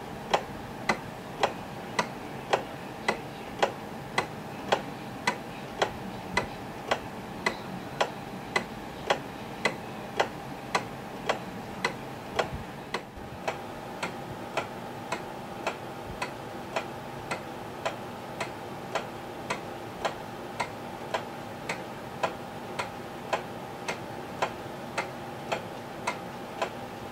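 1934 Ingraham Bedford pendulum wall clock ticking steadily, about two even ticks a second. Its time-only movement, freshly cleaned and reassembled, is running.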